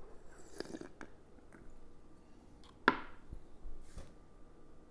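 A few soft handling clicks of tableware, then one sharp knock with a short ring about three seconds in, like a glass or bottle set down on a table.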